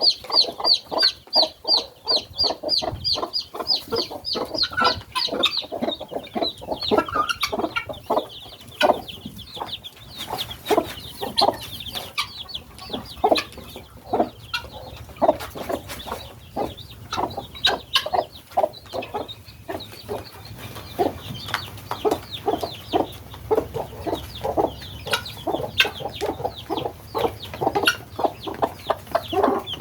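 Helmeted guineafowl calling: a fast, even run of harsh repeated calls, about three a second, for the first five seconds or so, then a dense, overlapping chatter of calls and clucks from the flock.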